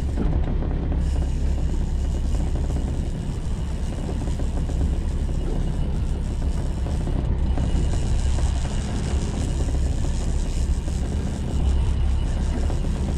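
Steady low rumble of wind buffeting the microphone on a small motorboat, mixed with the boat's engine running.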